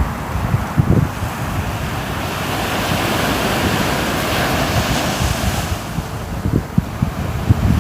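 Ocean waves washing on the shore, one wave swelling and receding over a few seconds, with wind buffeting the microphone in low gusts.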